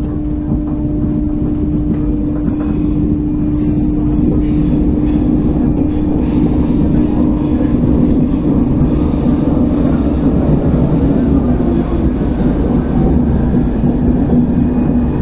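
RER B train running between stations, heard from inside the car: a steady rumble of the running gear with a steady hum from the traction equipment, the odd traction noise the rider noticed. The sound grows louder over the first few seconds, and the hum drops a step in pitch about ten seconds in.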